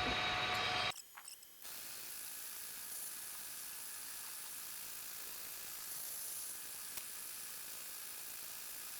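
Electric drill running with a steady whine, then cutting out about a second in; a steady faint hiss follows.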